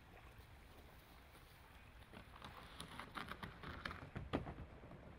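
Kayak paddle strokes in calm river water: a run of small splashes and drips from the blades in the second half, over a low steady rumble.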